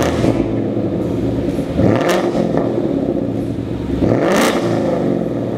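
2015 Mustang GT's V8 idling through an aftermarket exhaust, blipped twice: about two seconds in and again about four seconds in, each rev rising and falling back to idle.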